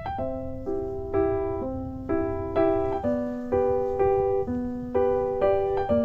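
Background piano music, gentle notes and chords struck in a steady rhythm, about two a second.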